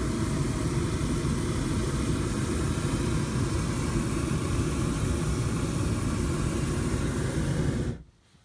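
Hot air balloon's propane burner firing in one long, steady, loud blast that cuts off abruptly near the end.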